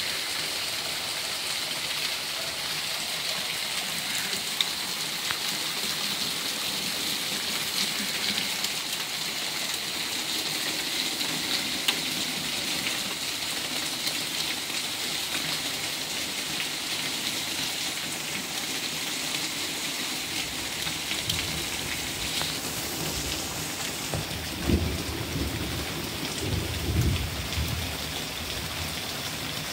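Heavy rain falling steadily on leaves and shrubs, a dense hiss with scattered drop ticks. Low rumbles of thunder swell in about two thirds of the way through and peak near the end.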